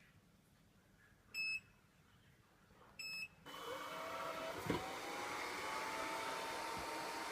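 D5501 robot vacuum cleaner beeping twice, then its motors starting up about halfway through: a whine that rises in pitch and settles, over a steady rush of suction, with a light knock soon after it starts.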